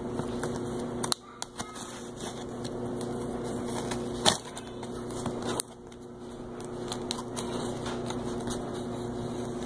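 A cardboard box being handled and shifted, giving a few sharp knocks and taps, over a steady electrical hum. Near the end a utility knife is set to the packing tape on the box's top.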